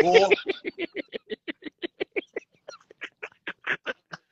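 A person laughing hard: a long run of quick, evenly spaced 'ha' pulses, about six a second, slowing and fading a little toward the end.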